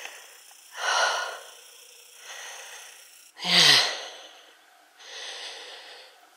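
A woman's heavy breathing close to the microphone: four breaths a second or two apart, the loudest about halfway through a voiced sigh that falls in pitch. This is the breathing of a hiker out of breath on a hilly coast path.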